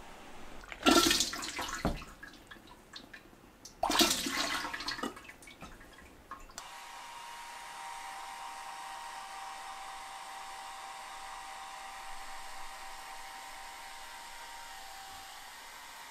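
Liquid clay slip splashing twice into a stainless steel bowl. About six seconds in it gives way to the steady whir of a hair dryer drying the freshly slipped plates.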